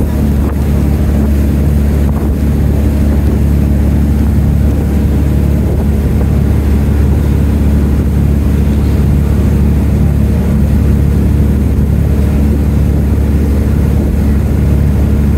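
Engine of a wooden passenger boat running steadily under way: a loud, even, low drone that never changes pitch, with water rushing along the hull.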